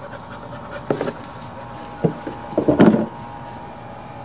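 A few scattered knocks and clunks of handling, the loudest cluster a little before three seconds in, over a faint steady hum.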